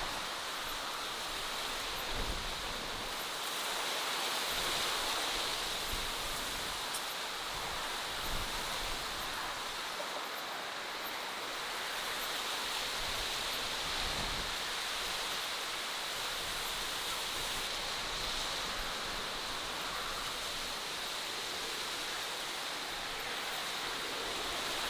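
Steady outdoor natural ambience: an even rushing hiss with no distinct events, like running water.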